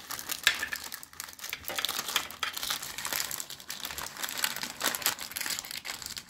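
Baking paper crinkling and rustling in quick, irregular crackles as it is folded and crimped shut by hand around food on a metal oven tray.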